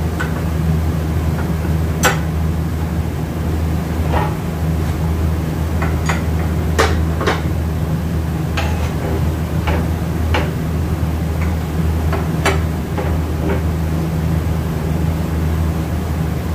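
Irregular light metal clinks and taps as automatic transmission parts and hand tools are handled on a steel workbench, over a steady low hum.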